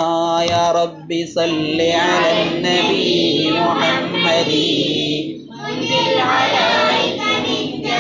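A single voice singing devotional verse in drawn-out melodic phrases with long held notes. The singing breaks off briefly about a second in.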